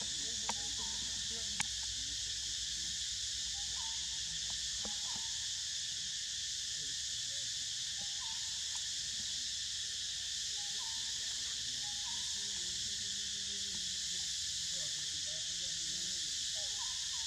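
Steady, unbroken high-pitched drone of an insect chorus, with faint distant voices under it and a couple of small clicks about a second in.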